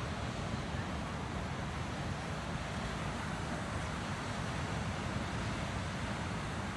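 Steady rush of wind and sea surf, with low wind rumble on the microphone.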